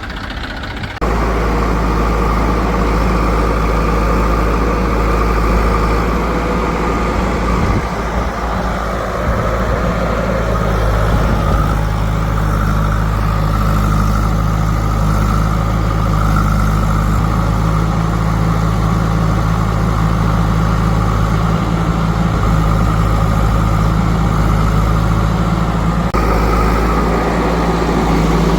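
Heavy diesel engine running steadily with a low, even drone; it gets louder about a second in.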